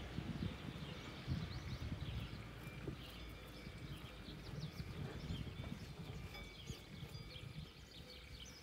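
Small birds chirping and twittering in quick short notes, over a low, uneven rumble.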